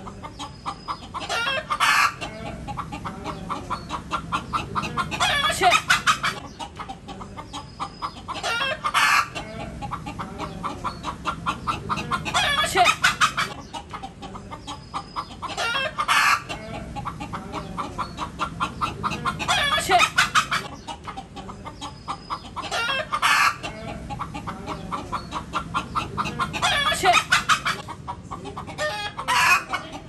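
Indian country hen (natu kodi) cackling: runs of rapid clucks that build into a loud, drawn-out squawk, repeating about every three to four seconds.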